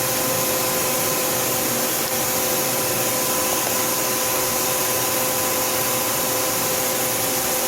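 Tsugami S206 CNC Swiss lathe running under power while its Z axis is jogged: a steady hum and hiss with a few constant whining tones.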